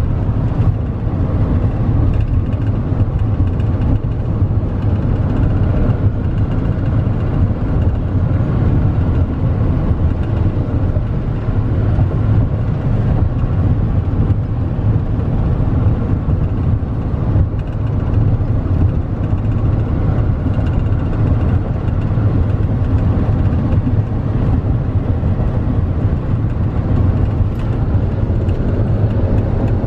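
Steady in-cab noise of a 2015 GMC Sierra 3500HD with a 6.6 Duramax diesel cruising at about 65 mph: road and tyre noise over a constant low drone.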